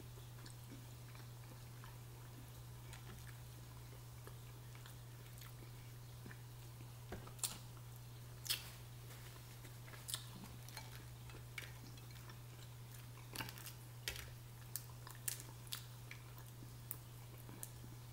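Boiled crawfish being peeled by hand and eaten: scattered sharp cracks and clicks of the shells, mostly from about halfway on, with chewing, over a steady low hum.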